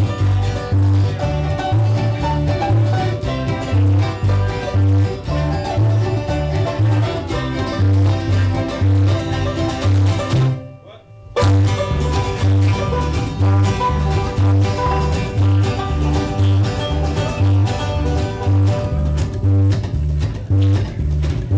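Bluegrass band playing live, banjo and guitar over a steady bass beat. The whole band stops dead for about a second midway, then comes back in together.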